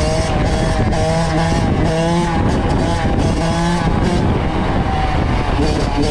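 Kawasaki KX85 two-stroke single-cylinder engine running under way, its pitch rising and falling repeatedly as the throttle is worked, over a dense rush of noise.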